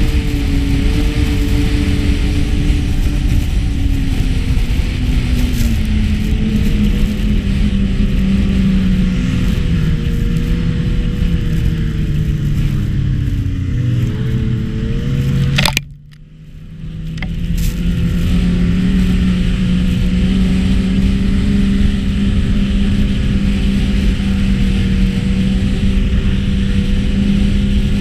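Snowmobile engine running under way. Its drone slides lower in pitch as the machine slows, then comes a sharp click and the sound drops out for about a second before the engine drone returns and holds steady.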